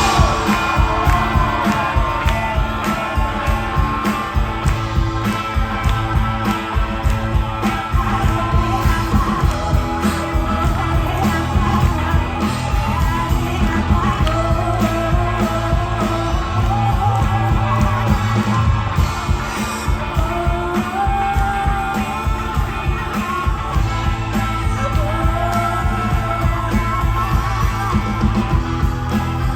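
Rock band jamming: a steady drum and bass groove with guitar, and a lead line bending up and down in pitch over it.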